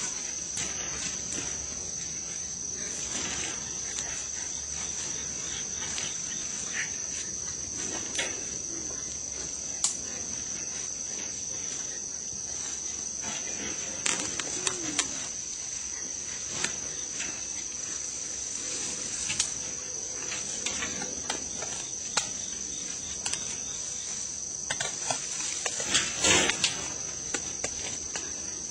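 A steady, high-pitched insect drone runs without a break. Scattered clicks and rustles come from wild boar piglets moving about in a wire cage trap, with a louder clatter about 26 seconds in.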